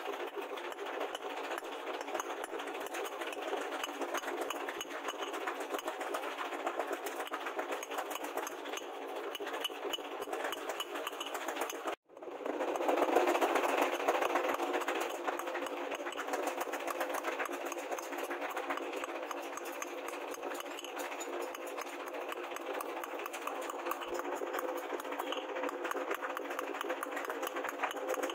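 Hand hammer working red-hot steel rebar on a steel anvil, amid a dense, steady clatter of small ticks. The sound cuts out for an instant about twelve seconds in.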